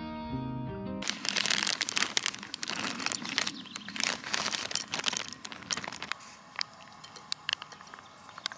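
Guitar music cuts off about a second in. Then dry dog kibble is poured from a plastic zip bag into a glass container: a dense, crinkling clatter for about five seconds. After that it is quieter, with a few scattered small clicks as wet dog food is squeezed from a pouch onto the kibble.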